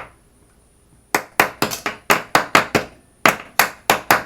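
Metal shelf brackets being tapped down into wall-mounted shelving tracks: a run of sharp metallic taps, about four a second, starting about a second in, with a brief pause near three seconds in before another run.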